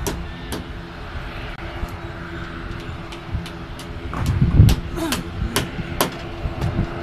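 Steady low rumble of distant engines with a faint hum, broken by scattered sharp clicks and knocks and a louder low thump about four and a half seconds in.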